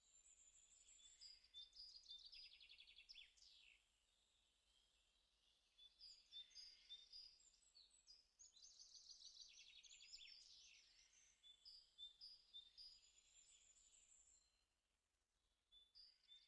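Faint songbird singing: whistled notes and rapid trills in long phrases, with short pauses between them.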